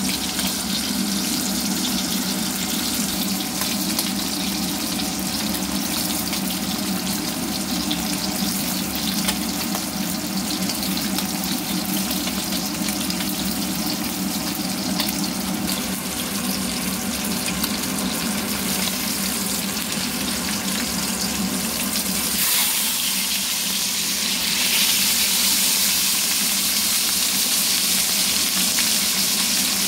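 Whole tilapia frying in a little oil in a pan: steady sizzling and spitting of the hot oil. About 22 s in the sizzle turns brighter and hissier and gets a little louder.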